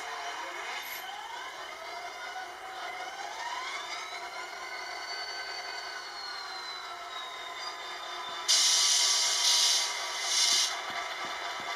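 Model diesel locomotive's DCC sound decoder playing a diesel engine starting up, its whine rising in pitch over the first few seconds and then settling into a steady run. About eight seconds in come loud bursts of air hiss, three in quick succession over about two seconds.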